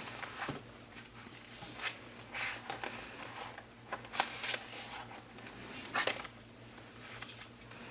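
Light handling of cards and paper inserts: a scatter of short rustles, slides and soft clicks, about half a dozen, as cards are picked up and laid down.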